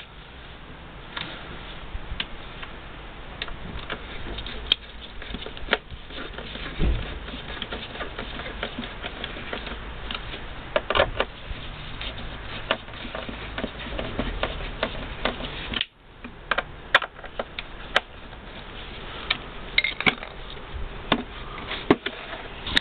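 Screwdriver turning screws into the plastic housing of a Volkswagen T4 rear heater box, with scattered clicks and knocks of hard plastic being handled over a steady background hiss.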